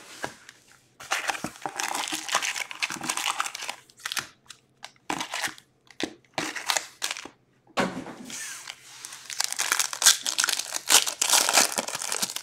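Trading card pack wrappers being torn open and crinkled, in two long stretches of crackling with scattered short clicks and taps between them.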